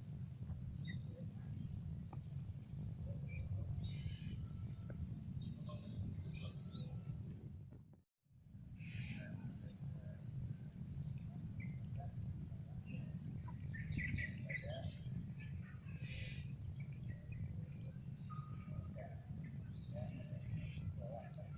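Outdoor ambience of insects and birds: a steady high insect drone with scattered short bird chirps over a steady low rumble. The sound drops out briefly about eight seconds in.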